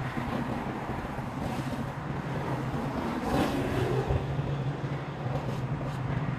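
An engine runs with a steady hum, mixed with the noise of passing road traffic and a little wind on the microphone.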